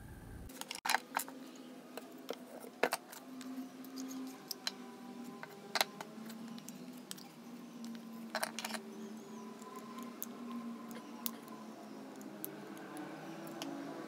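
Scattered light clicks and taps from handling a plastic lamp holder and a small wooden board, with a screwdriver working at the holder's screws, over a faint steady hum.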